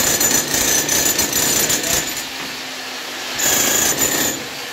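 A power tool running with a harsh buzzing whine, loud for the first two seconds, dropping away, then coming back briefly near the end.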